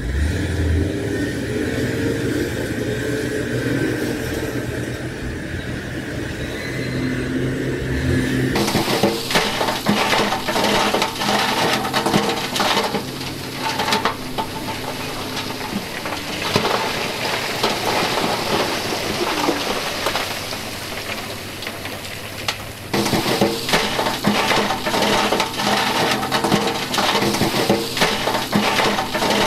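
Diesel engines of heavy equipment running with a steady hum, then, about eight seconds in, an abrupt change to the rush and rattle of stone pouring off tipping dump-truck beds into the lake, with engine hum beneath. The sound shifts abruptly again near the end.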